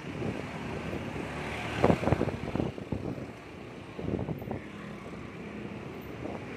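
Riding a motorbike through street traffic: wind buffeting the microphone over the hum of the engine and passing vehicles, with a louder gust about two seconds in.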